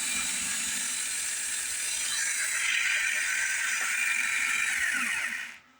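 Cordless drill motor and gearbox spinning a DIY micro metal lathe's chuck with a steady whir; the sound grows a little louder and brighter about two seconds in, then the drill is switched off and winds down in pitch, stopping near the end.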